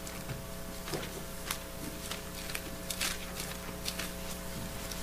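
Room tone with a steady electrical hum and scattered faint rustles and clicks.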